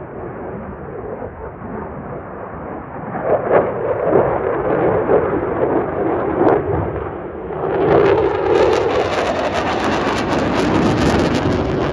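F-16 fighter jet flying a display pass, its engine noise a ragged, crackling roar. The noise swells and turns brighter about eight seconds in as the jet comes nearer.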